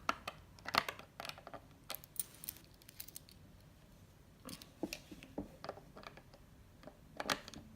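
Faint, scattered clicks and knocks of a small key on a string and wooden toy parts being handled, as a child fumbles a key at the lock of a wooden toy house door.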